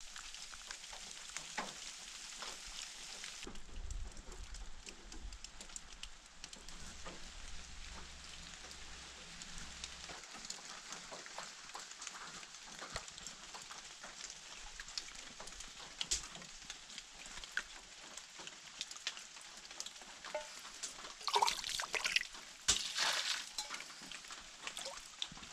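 Steady rain falling and dripping on wet leaves and the cabin roof: a dense even hiss full of small drop ticks. Near the end, a steel mug is dipped into a bucket of water, with a few louder splashes and knocks.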